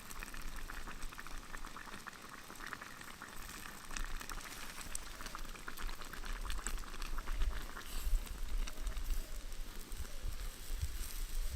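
A pot of beef stew bubbling at a steady simmer over a campfire as its beer-and-water gravy reduces, a continuous crackle of small bubbles.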